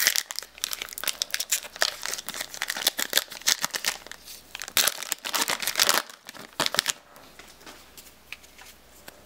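Foil trading-card booster pack wrapper crinkling and tearing as it is ripped open: a dense run of sharp crackles that dies down about seven seconds in.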